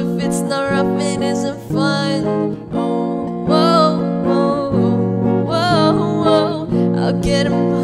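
A girl singing a pop song while accompanying herself on electric guitar, playing chords that change every second or two.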